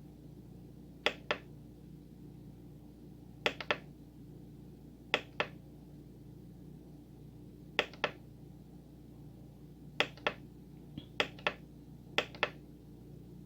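Sharp plastic clicks of the Korg N264 synthesizer's front-panel buttons being pressed, mostly in quick pairs about a quarter second apart, every second or two, as the edit pages are stepped through. A faint steady hum sits underneath.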